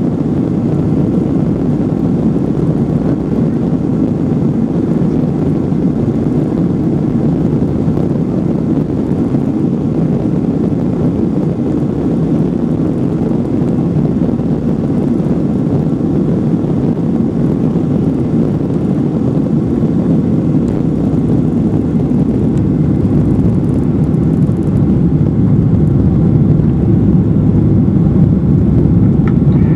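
Boeing 737-700's CFM56-7B engines at takeoff thrust, heard inside the cabin: a steady, low rushing noise through the takeoff roll and liftoff into the climb, growing a little louder in the last few seconds.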